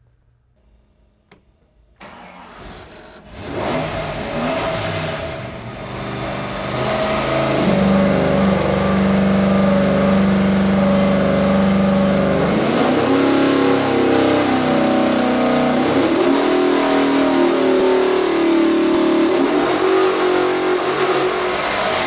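Ford Windsor small-block V8 crate engine on an engine dyno, starting up about two seconds in and then running hard under throttle. It holds a strong steady note for several seconds, then changes and wavers in pitch as it is worked through a dyno run.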